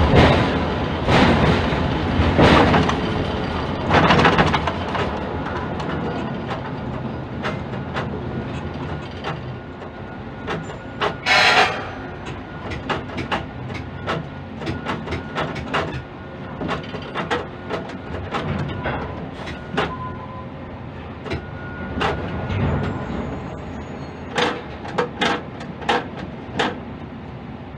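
Container quay crane machinery heard from the operator's cab as the spreader lowers a container into a ship's hold. A steady mechanical rumble is loudest at first and eases off. A run of light knocks and clanks follows, with one sharp, loud burst about eleven seconds in.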